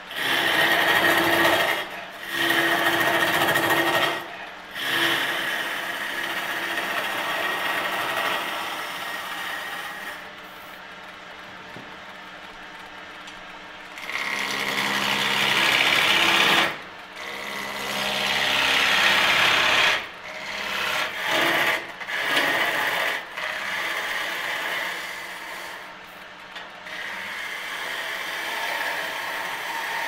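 Wood lathe running with a steady motor hum while a tool cuts the spinning wood, the scraping cut noise swelling loud for a few seconds at a time and easing between passes, with several brief dips.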